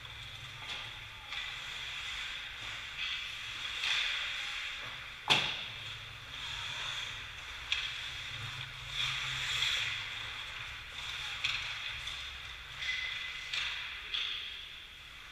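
Ice hockey skates scraping and carving on the ice in repeated swishes, with a few stick-and-puck clacks. One sharp clack comes about five seconds in and is the loudest sound.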